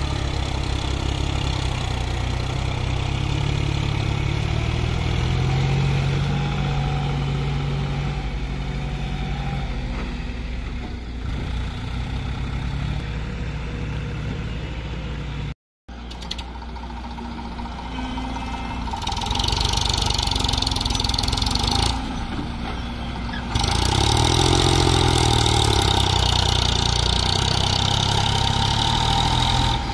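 Diesel tractor engines running under load while hauling fully loaded sand trolleys: a John Deere 5050 in the first half, then, after a short dropout and several abrupt cuts, other tractors, with an Eicher 548 near the end.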